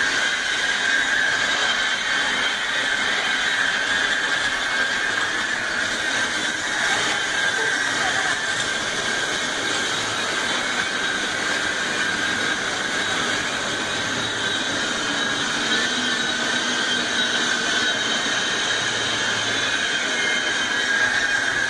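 Floodwater rushing steadily along a flooded street, a loud, even hiss-like rush with no breaks.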